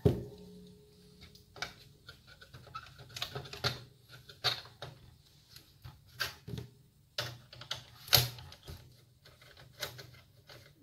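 Screwdriver work on the DVD player's chassis as the mains-inlet screws are taken out: irregular small metallic clicks and ticks of the tool and screws, one sharper knock about eight seconds in.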